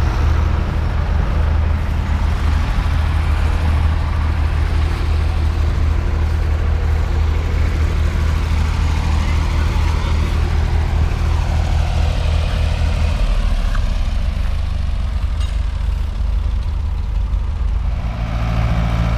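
Farm tractor engine running steadily. Its low note drops about two-thirds of the way through and changes again near the end.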